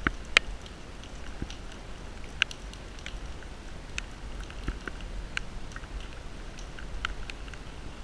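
Raindrops tapping in scattered, irregular light ticks, a few a second, over a low steady rumble of wind on the microphone.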